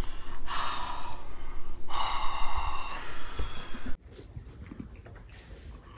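Heavy, drawn-out breaths: two long gasping exhales and inhales through the mouth, the kind of panting that follows the burn of extremely spicy noodles. About four seconds in it cuts off abruptly to quiet room sound.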